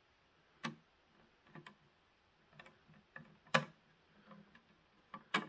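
About half a dozen sharp, irregular metallic clicks and ticks as a Phillips screwdriver turns a screw into the Thermalright Phantom Spirit 120's metal mounting bar, threading it in by hand. The loudest click comes about three and a half seconds in.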